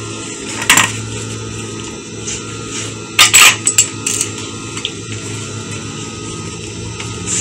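Cloth rustling as the freshly stitched dress is handled and turned. It comes as a few brief, crisp rustles, one near the start and a louder cluster a little past the middle, over a steady low hum.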